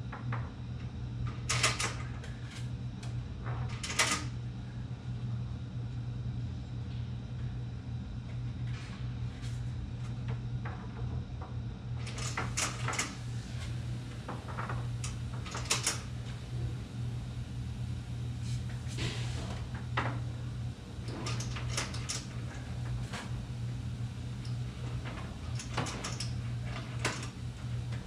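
Plastic clicks and clatters of vertical blind vanes and their headrail being handled and adjusted, coming irregularly, some in quick clusters, over a steady low hum.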